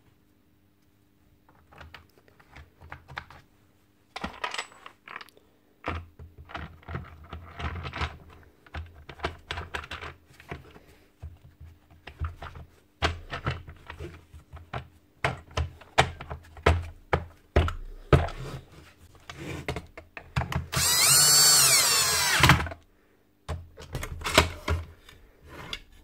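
Hard plastic tool-housing parts are handled and fitted together, with repeated clicks, knocks and rattles. About twenty seconds in, a cordless drill-driver runs for about two seconds, its pitch wavering under load. This is the loudest sound.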